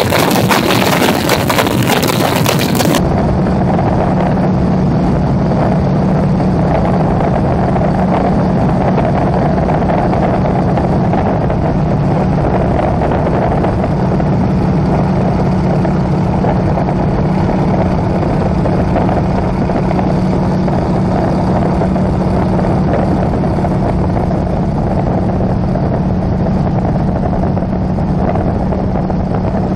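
Propeller aircraft engine, the SNJ-2's nine-cylinder radial, droning steadily in level flight with wind rush. About three seconds in the sound changes abruptly to a duller, steadier drone with a strong low hum, as heard from inside the cockpit.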